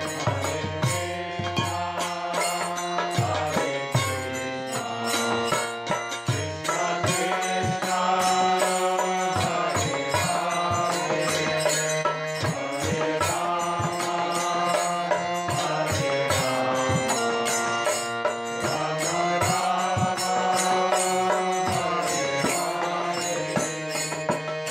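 Background devotional music: chanted vocals over a steady held drone with light percussion.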